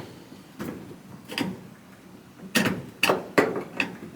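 Screwdriver working at the spring clips on an LG electric dryer's cabinet, pushed in and levered up: a string of short clicks and knocks, bunched closer together in the second half.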